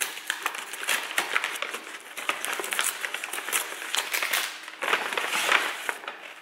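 Brown paper takeaway bag crinkling and rustling as hands grip and pull at its taped-shut top: a dense run of small crackles that grows busier near the end.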